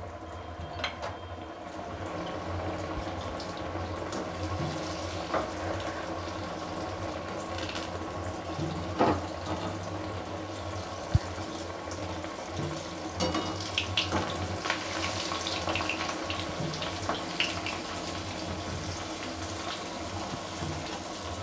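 Sweet potato dough pieces deep-frying in hot vanaspati ghee in an aluminium kadhai on a low flame: a steady bubbling sizzle. A few light clinks from a wire slotted spoon against the pan.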